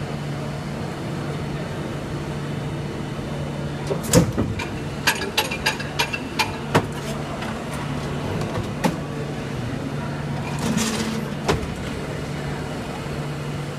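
Hydraulic injection moulding machine running: a steady low hum with a knock about four seconds in, then a run of sharp clicks and clacks. A short hiss comes near the eleventh second, followed by another knock.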